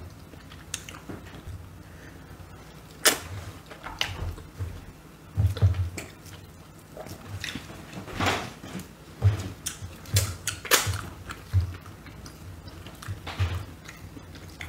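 Hand-eating sounds at a table: chewing and fingers working food in a bowl of soup, with scattered short clicks and soft knocks.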